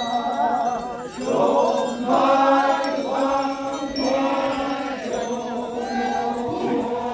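Naga warriors chanting together, a chorus of male voices over a steady held low note, in repeated phrases about once a second.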